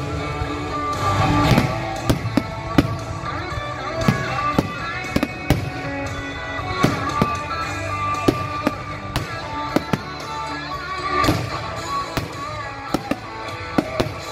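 Fireworks going off in an irregular string of sharp bangs, over music with sustained melodic tones.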